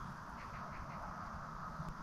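Quiet background ambience: a steady faint high hum over low rumble, with a few soft ticks about half a second in and a single click near the end.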